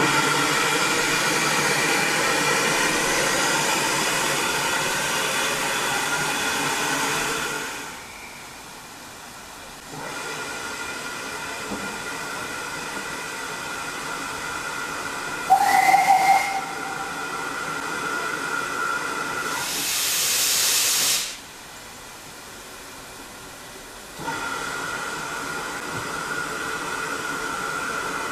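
Steam locomotive letting off steam in loud hissing spells with steady tones in them, a short whistle blast about halfway through, and a strong burst of escaping steam a few seconds later.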